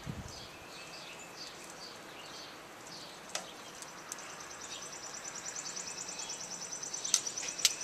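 Metal tongs clink a few times against a cast iron skillet, most sharply twice near the end, over outdoor ambience. A bird chirps repeatedly, and from about halfway an insect's fast, even, high-pitched trill sets in.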